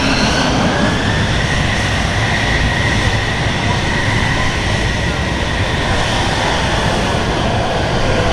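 Military jet aircraft engine noise: a loud, steady roar with a high whine that rises slightly and then falls away as the jet passes.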